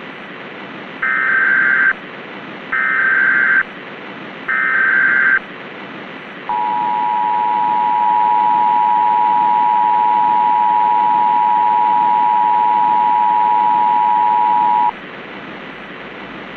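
Emergency Alert System SAME header: three separate one-second bursts of warbling digital data tones, followed by the EAS two-tone attention signal (853 and 960 Hz together) held steady for about eight seconds, all over a constant hiss of static.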